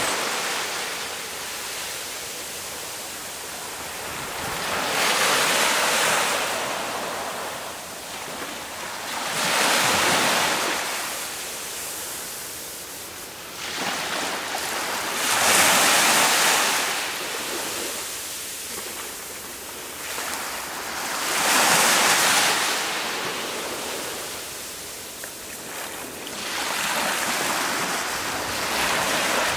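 Sea waves breaking on a shore, each one a rushing swell that builds and fades about every five to six seconds.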